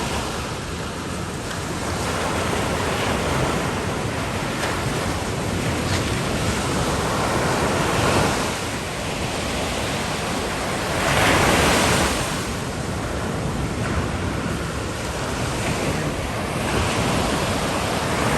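Ocean surf breaking on a beach, a steady wash of waves with a louder swell now and then, mixed with wind buffeting the microphone.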